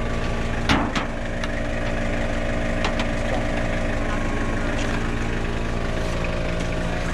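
Toyota Hilux engine running steadily at idle during a winch recovery, with one sharp knock a little under a second in.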